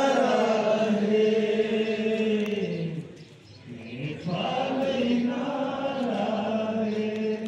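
A large crowd of men's voices chanting together in unison in long drawn-out notes, breaking off about three seconds in and then taking up another long held chant.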